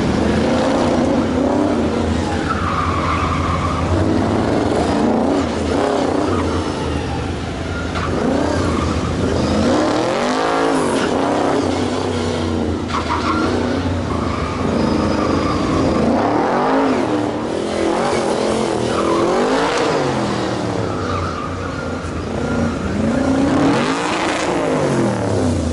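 1972 Chevrolet K5 Blazer autocross truck's engine revving up and dropping back again and again as it runs the cone course. Its tyres squeal several times in the turns.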